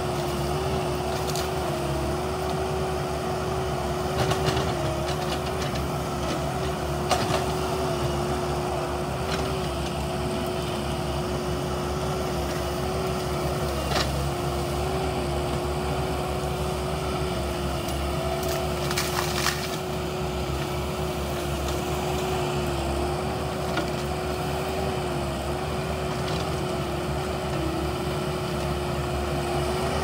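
Bulldozer's diesel engine running steadily with a constant whine over a low rumble, with a few sharp knocks along the way.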